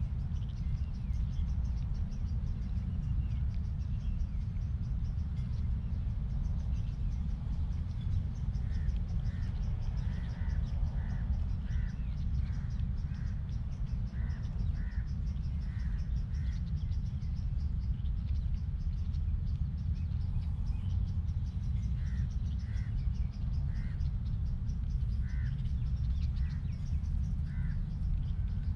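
Steady low rumble of outdoor background noise, with two runs of short, evenly spaced high-pitched animal calls, one in the middle and another near the end.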